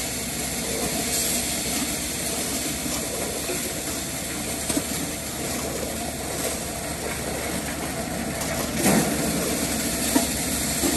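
An engine running steadily, with a few brief clatters of maize kernels poured against aluminium basins, the loudest about nine seconds in.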